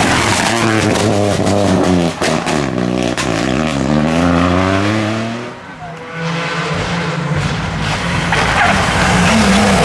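Rally car engine revving hard, with a short crackle of sharp pops a couple of seconds in. The engine note falls away as the car slows, dips briefly about halfway, then climbs again as it pulls away, with tyre skid noise.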